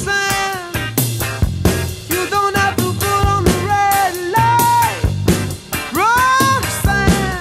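Background rock music with a steady drum beat and a lead melody that slides up into its notes.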